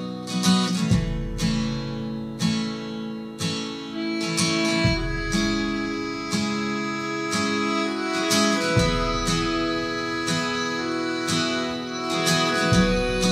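Instrumental opening of a song played through Dali Opticon 2 MK2 bookshelf speakers: strummed acoustic guitar in a steady rhythm, with a deep bass note coming in about every four seconds.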